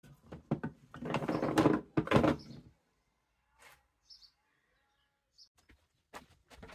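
Wood being worked by hand: a few sharp knocks, then two loud rasping strokes, then scattered clicks, with two short bird chirps in the quiet stretch.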